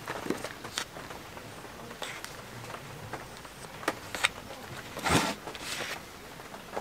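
Folding knife cutting a block of tofu in its plastic tray: scattered light clicks and taps as the blade presses through and touches the plastic. A louder scraping knock comes about five seconds in, as the tray is handled on the wooden board.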